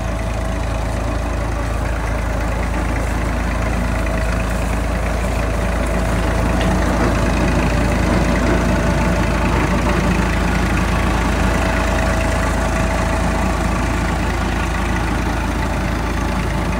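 Massey Ferguson 240 tractor's three-cylinder diesel engine running steadily under load, pulling and driving a potato digger through the soil.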